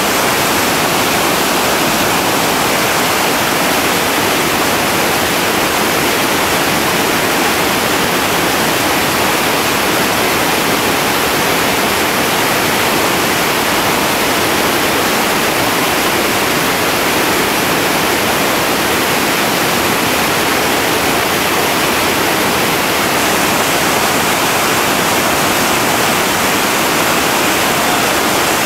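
Upper Gauley River whitewater rapid rushing: a loud, steady noise of crashing waves that does not let up.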